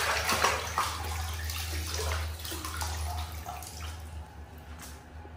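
Water splashing and sloshing in a small plastic bathtub as a hand scoops and swishes the water, dying away about a second before the end.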